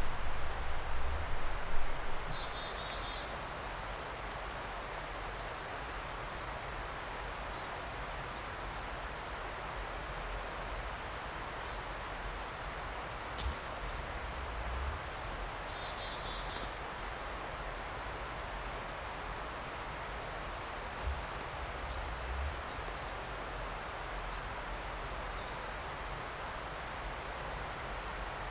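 A small songbird singing repeated high, twittering phrases, some rising and some falling, over a steady background hiss. A low rumble is heard in the first two seconds.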